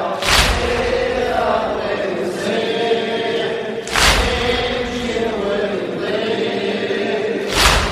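Male chorus chanting a Shia latmiya lament in unison. Three loud, heavy thuds about three and a half seconds apart cut through it: the mourners striking their chests together (latm) in time with the chant.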